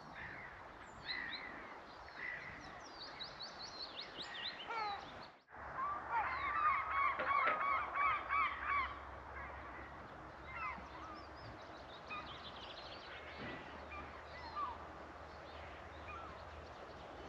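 Wild birds calling: quick high chirps at first, then a flock of geese honking in overlapping calls, loudest from about six to nine seconds in.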